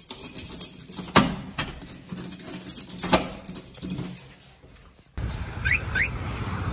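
Keys jangling on their ring and a run of sharp clicks from the cylinder lock of a metal front door as it is locked with a key. About five seconds in this cuts off, and a steady low outdoor rumble follows with two short chirps.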